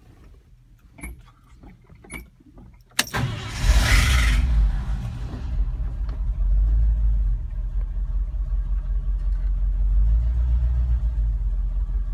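A few light clicks, then about three seconds in the 1970 Ford F100 pickup's engine cranks and catches, runs loudly for a couple of seconds on the start, and settles into a steady idle.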